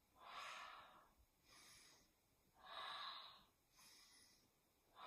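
A person breathing audibly and rhythmically during a movement warm-up: about three breath cycles, each a longer, louder breath followed by a shorter, softer one, faint.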